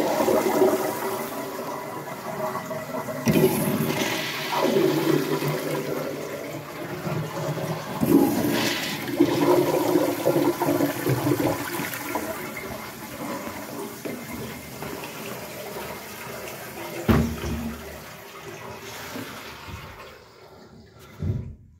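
Crane wall urinal flushing from its chrome manual flush valve: water rushes into the bowl with several surges, then slowly fades away over about twenty seconds. A short knock comes near the end.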